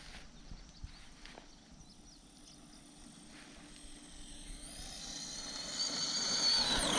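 Electric motor and gear whine of an Arrma Senton 4x4 Mega 550 RC truck. It rises in pitch and grows steadily louder from about four seconds in as the truck drives toward the microphone. Before that, only a few faint ticks.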